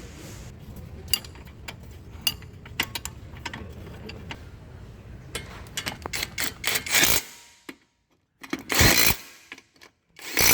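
Hand tools working on a car: scattered short metallic clicks and ticks over a steady low hum. The hum cuts off suddenly about seven seconds in, and two short, loud noisy bursts follow.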